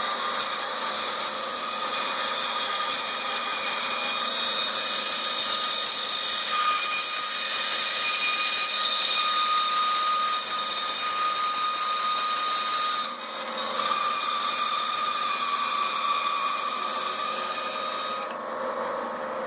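Bandsaw running and cutting freehand through a block of timber for a scarf joint: a steady whine of several held tones over a hiss. The sound dips briefly about two-thirds of the way through, and its higher part drops away near the end.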